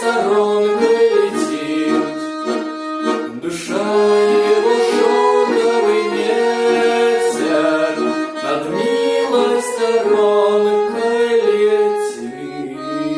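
Instrumental closing passage of a song, without singing: held chords with a melody moving over them and an occasional struck beat. It thins out near the end.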